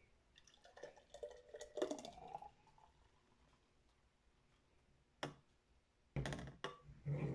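Thick blended smoothie pouring from a blender jar into a glass, a soft gurgle whose pitch rises as the glass fills. A single click a little after five seconds, then a few low knocks near the end.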